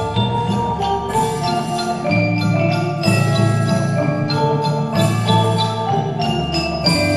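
Percussion ensemble playing tuned mallet percussion: struck bell-like notes that ring on, with new strokes about once a second over low sustained tones.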